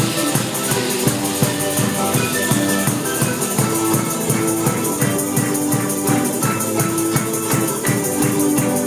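Music with a steady quick beat, with shaker-like percussion over held pitched notes.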